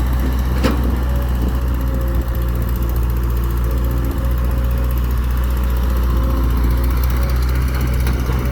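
Excavator engine running steadily under work, with a sharp knock under a second in and a couple of lighter clicks near the end.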